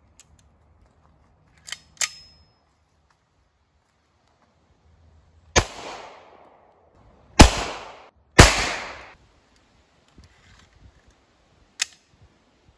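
Ekol Firat Magnum 9 mm blank pistol firing three blank cartridges: a lighter first shot, then two louder ones about a second apart, each trailing off in a short echo. A couple of sharp metallic handling clicks come about two seconds in, and one more near the end.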